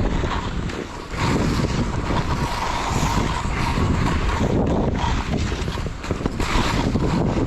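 Strong wind buffeting the microphone, with skis hissing over snow in repeated surges as they turn.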